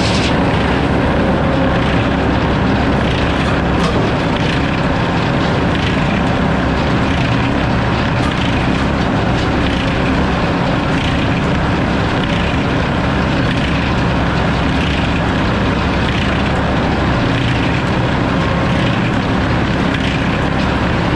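Sawmill engine and spinning blade running steadily between cuts, with no wood in the saw.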